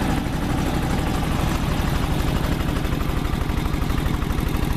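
Wisconsin AHHD air-cooled single-cylinder gasoline engine idling with a steady, even pulse, driving a four-cylinder two-stage DeVilbiss compressor pump that is building air in its tank.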